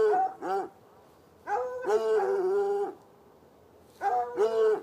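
Hound barking in pitched, drawn-out barks: two short ones at the start, a longer run of barking about a second and a half in, and two more near the end.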